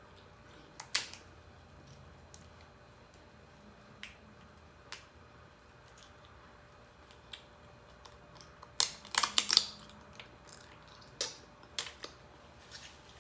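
Close-miked sounds of eating Dungeness crab: scattered sharp cracks and clicks of crab shell being broken apart, with a louder cluster of cracks about nine seconds in.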